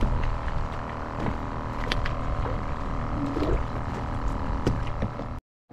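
A small engine running steadily with a low hum, with scattered light clicks and knocks from fishing gear being handled in a small boat. The sound cuts off suddenly near the end.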